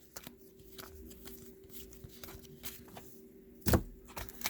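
Light clicks and taps from handling trading card packs and their box, with one louder thump about three and a half seconds in, over a faint steady hum.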